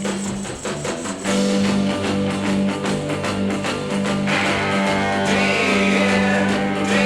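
Music from a 1965 pop record playing an instrumental passage: guitar over a steady bass line and beat, with a brighter upper part coming in about four seconds in.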